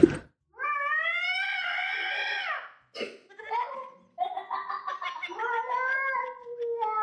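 A domestic cat yowling in long, drawn-out calls, each rising then falling in pitch. There is one long yowl, a couple of short sounds, then a second long yowl about four seconds in.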